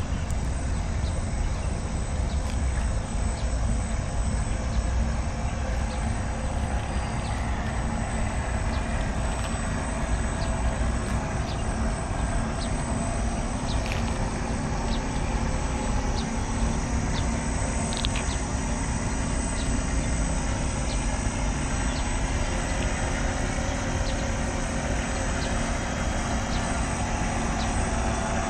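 A radio-controlled model ferry's drive motors running steadily as it cruises, giving a faint continuous hum over a steady low outdoor rumble.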